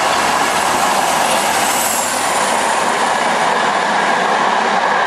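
Class 47 diesel locomotive and its passenger coaches passing at speed: a steady loud rush of wheels on rail, with a faint high whine that drops in pitch about two seconds in.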